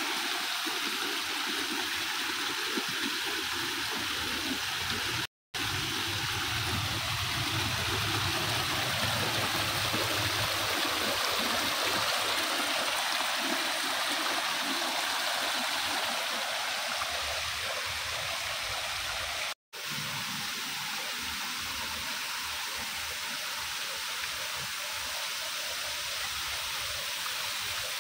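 Water of a small rock waterfall splashing and cascading over mossy stones: a steady rushing that cuts out for an instant twice, about five and twenty seconds in.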